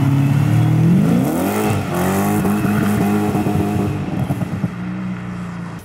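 A BMW E30 with a swapped-in M60 V8 accelerating away. The exhaust note rises in pitch about a second in, then holds with a throbbing pulse and fades as the car drives off.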